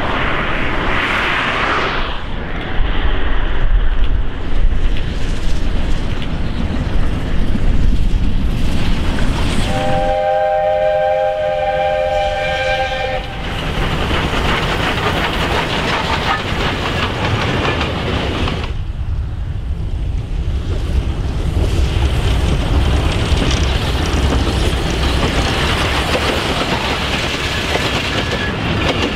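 South African Class 19D steam locomotive running past with its passenger train, its working sound and the rumble of wheels on rails continuing throughout. About ten seconds in, its steam whistle sounds a steady chord of several notes for about three seconds.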